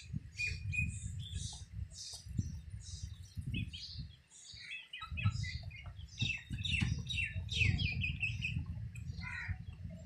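Young chickens peeping: many short, high chirps overlapping throughout as the birds peck at grain, over a steady low rumble.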